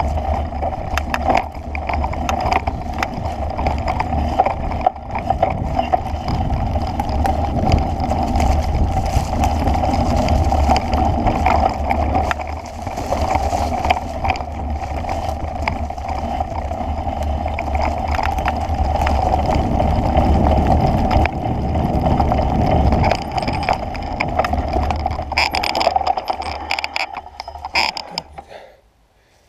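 Steady rumble of wind buffeting a moving camera's microphone, with rattles and knocks from travelling along a rough dirt path. It dies away near the end as the motion stops.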